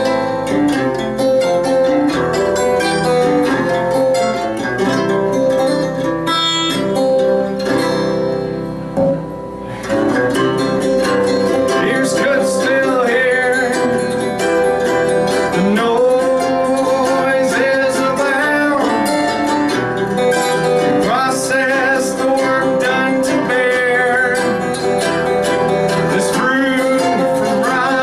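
Live acoustic duo playing: plucked and strummed guitars, dipping briefly about nine seconds in, then a man's voice singing over them from about twelve seconds on.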